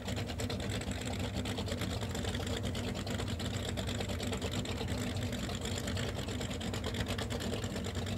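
Offshore racing powerboat's engine idling at low speed: a steady low rumble with a fast, even rhythm.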